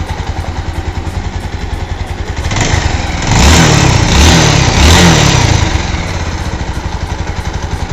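Bajaj Pulsar 220's single-cylinder engine idling with an even, rapid beat. About two and a half seconds in it is revved up a few times, then drops back to idle, running on a freshly fitted timing chain.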